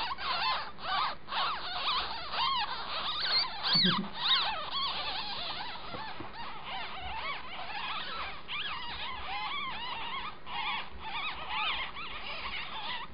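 A litter of nine-day-old ferret kits squeaking continuously, many short high-pitched squeaks overlapping one another, with a short low thud about four seconds in.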